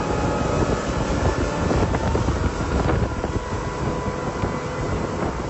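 Motorboat running at speed, its engine drone under wind buffeting the microphone and water rushing and slapping past the hull.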